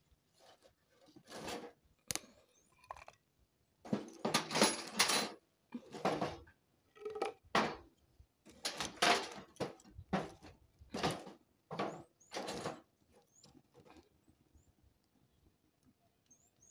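Irregular clatters, knocks and scrapes of firewood and a metal cooking pot being handled at a wood-burning cookstove, about a dozen short sounds, most of them between about four and thirteen seconds in.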